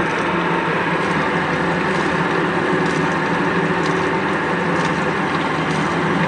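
Blanchard rotary surface grinder running, its grinding segments cutting the face of a steel hub cap: a steady, loud grinding noise over a low machine hum.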